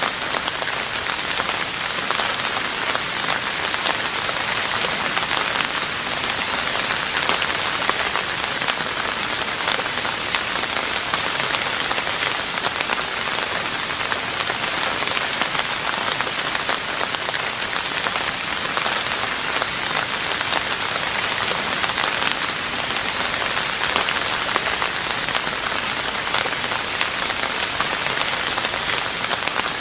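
Steady rain falling on a roof: a dense, even patter of countless drops, with no thunder.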